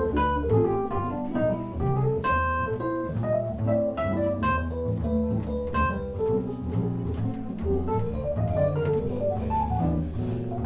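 Live jazz from a small group: a double bass plucked low beneath a quick line of single melody notes.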